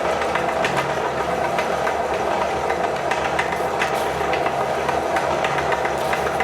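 Electric meat grinder running steadily with a constant motor hum, with scattered short clicks and crackles from material going through it.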